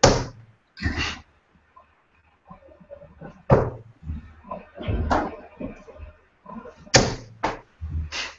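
Darts striking a Unicorn Eclipse HD bristle dartboard, heard as a series of short, sharp knocks a second or more apart as a visit of three darts lands.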